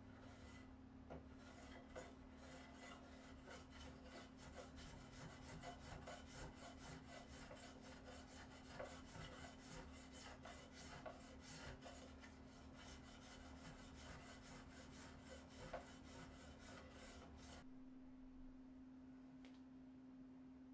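Rapid, continuous hand rubbing or filing strokes, like abrasive work on a tool, over a steady low hum. The strokes stop suddenly about 18 seconds in, leaving only the hum.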